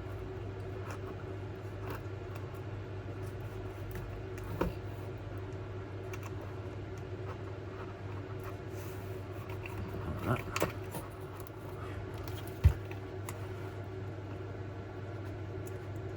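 Steady low hum under a few scattered small clicks and taps of hand tools and fingers working tape round a model locomotive's base plate, the loudest a sharp tap about two-thirds of the way through.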